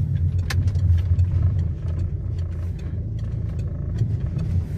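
Car heard from inside the cabin while driving: a steady low engine and road rumble with faint light clicks over it.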